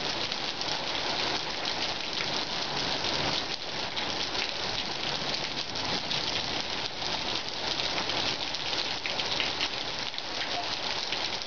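Steady rain during a thunderstorm: an even hiss with a dense patter of drops hitting surfaces, holding level throughout.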